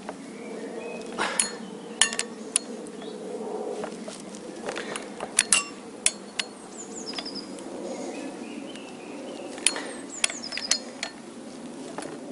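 Wrench and socket working on the flywheel bolts of a Toyota VVT-i engine to check that they are tight: scattered sharp metal clicks and knocks, a dozen or so at uneven intervals.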